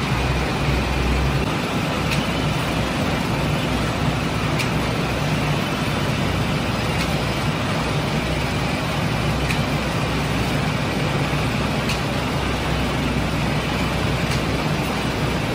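Steady rumble and low hum of a rotating bakery bread oven running, with a few light clicks.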